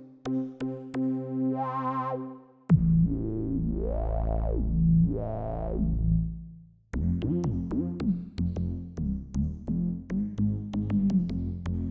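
Waldorf Quantum synthesizer playing. A held chord with vibrato comes first. From about a quarter of the way in, a low pad plays while its filter sweeps open and shut twice. In the second half, a fast run of short plucked notes with clicky attacks and pitch bends takes over.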